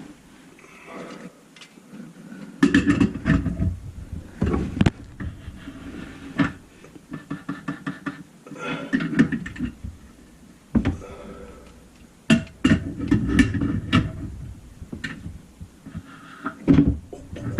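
Irregular knocks, clunks and rustling of sink and drain parts being handled and fitted, with a sharp strike now and then.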